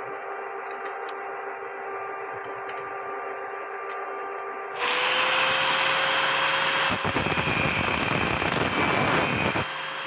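Angle grinder with an abrasive cut-off disc starts suddenly about halfway through, running loud with a steady motor whine. From about 7 s it grinds through the protruding steel bolt ends, the sound turning rougher. Before it, a steady hum with a few light metallic clicks.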